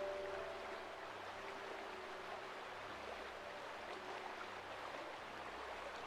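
Shallow, fast-flowing river running over a stony bed: a steady, even rush of water.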